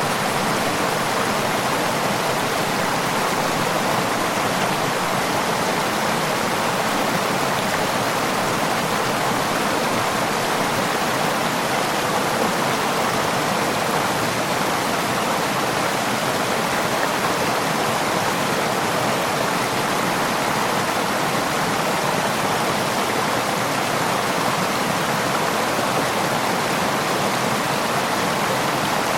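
Running water, a steady, even rush without breaks or changes.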